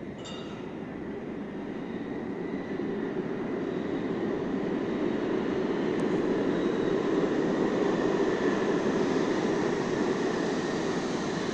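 A New York City subway G train approaching and pulling in on the far track of an underground station: a steady rumble of wheels on rail that builds, loudest in the last few seconds, with a faint steady whine above it.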